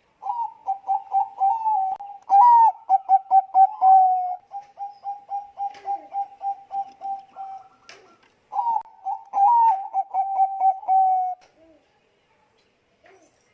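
Bangkok-strain zebra dove (perkutut) cooing: fast runs of short, clipped coo notes in two long phrases with a short pause between them, then falling silent about two seconds before the end.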